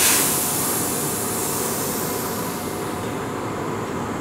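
Sudden loud hiss of air from a Keihan 2200-series electric train as its air brakes release, fading over about two seconds, over the steady rumble of the train as it starts to pull away from the platform.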